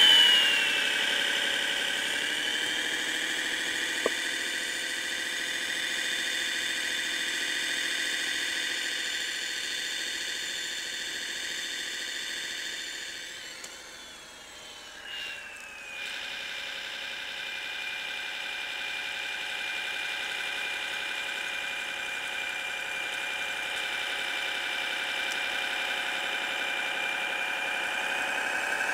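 Kyosho Blizzard DF-300 radio-controlled snow groomer running: a simulated engine sound from its Servonaut SMX sound module over the whine of its electric drive. The pitch falls, then rises and holds. About halfway it drops and falls away before steadying again. There is a short click about four seconds in.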